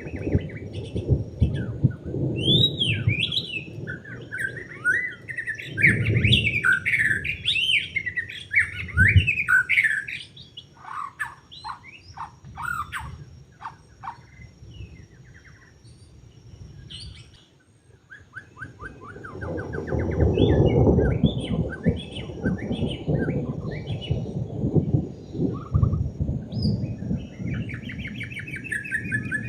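White-rumped shama singing: a varied run of whistles, pitch glides and rapid trills, busy at first, quieter through the middle, then starting up again. A low rumbling noise lies under much of the song.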